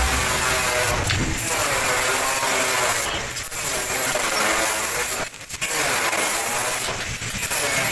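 Stick welder's electrode arc crackling and hissing while tacking steel scrollwork to a gate frame, in short runs broken by brief gaps about every two seconds.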